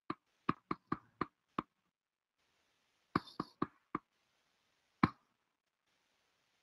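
Sharp computer clicks as slides are advanced: a quick run of six, then four more, then a single click about five seconds in, over a faint hiss.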